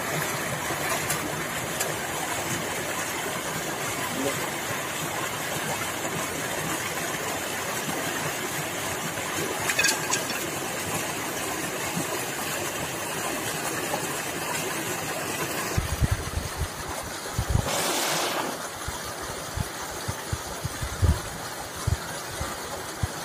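Water gushing steadily from a tubewell outlet pipe into a concrete tank, a continuous rush. About two-thirds in, low thumps and a brief louder burst break in.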